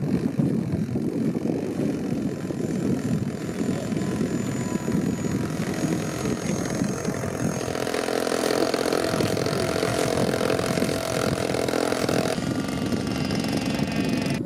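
Radio-control model floatplane's single propeller motor running steadily as it taxis on the water, with a rough rushing sound underneath; from about halfway through, a steady pitched hum from the motor stands out.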